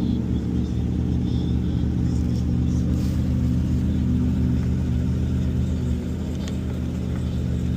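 A steady low mechanical drone of unchanging pitch, like a motor running nearby, dominates. A few faint metallic tool clicks come from the caliper bolts being worked loose.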